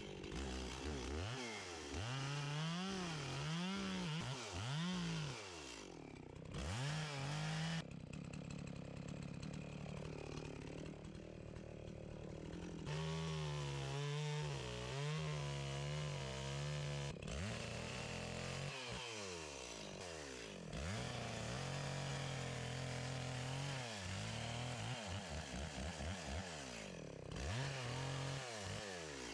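Chainsaw carving wood, its engine revving up and dropping back to idle again and again as the throttle is worked in short cuts, with longer held runs at full speed in between.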